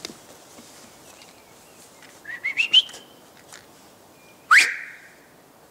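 A person whistling to call a dog: a quick run of short rising whistles about two seconds in, then one loud upward-sliding whistle near the end.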